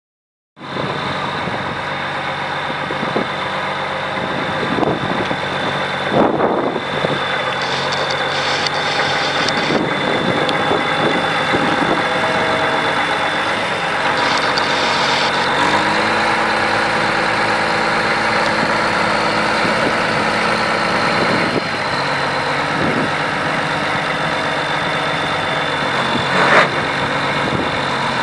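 Cummins M11 10.8-litre six-cylinder turbo diesel of a 1997 New Holland 9482 Versatile 4WD tractor running steadily at idle, with a steady high whine over it. The engine note steps up slightly about halfway through.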